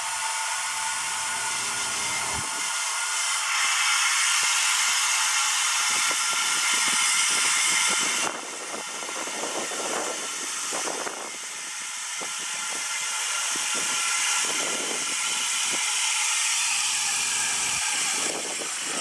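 Water from a garden-hose spray nozzle running into the top filler neck of a Ford Model A radiator as it fills, a steady hiss that grows louder about three and a half seconds in and drops back about eight seconds in, turning more uneven and splashy.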